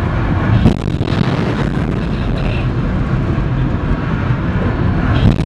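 Kalibr cruise missile launch from a warship's vertical launcher: the solid-fuel booster's exhaust makes a loud, continuous roaring rush as smoke pours off the deck. A sharp bang cuts through just under a second in, and another near the end.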